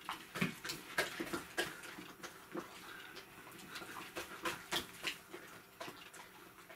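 A borzoi wolfing down chunks of meat: quick, irregular wet chewing smacks and jaw snaps, a few a second, as the food goes fast.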